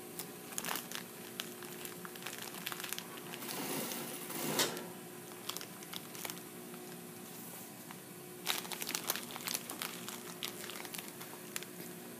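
Fabric rustling and crinkling as it is handled and guided under an industrial sewing machine's presser foot, over the steady hum of the machine's motor. A louder rustle swells about four seconds in, and a flurry of crinkling comes a little over two-thirds of the way through.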